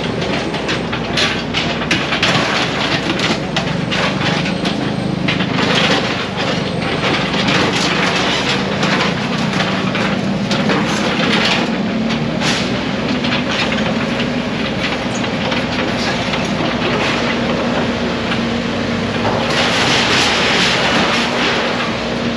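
An engine running steadily under dense, irregular clattering and knocking, the sound of stall structures being torn down.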